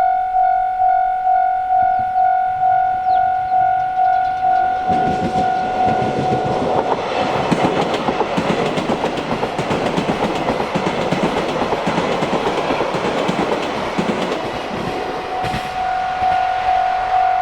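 Japanese level-crossing alarm ringing its electronic 'kan-kan' tone a little under twice a second. From about five seconds in, a train on the JR Chitose Line rattles through with clickety-clack wheel noise that drowns the bell. The train's noise ends shortly before the close, and the crossing bell is heard ringing alone again.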